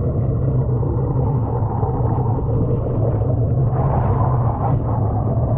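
Boat engine idling with a steady low rumble, picked up by a camera at the waterline beside the hull. Water sloshes a little more about four seconds in, as an arm comes up out of the water onto the boat.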